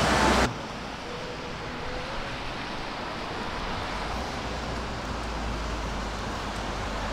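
Music stops abruptly about half a second in. It gives way to steady outdoor street ambience: a low hiss of wind and distant road traffic.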